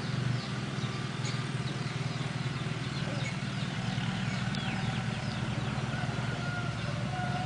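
A small engine idling steadily: a low rumble with a rapid flutter. Short, high, falling chirps of small birds come and go over it.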